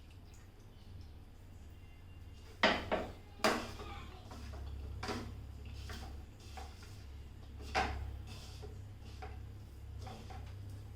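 Onion and gram-flour pakoda batter being mixed in a bowl, heard as a few sharp clinks and knocks against the bowl: three close together about three seconds in, and another near eight seconds. A faint steady low hum runs underneath.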